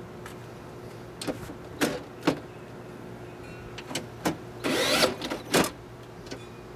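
Sharp knocks and clicks of a window regulator and its screws being handled and fitted inside a car door, with a short scrape just before five seconds in, over a steady low hum.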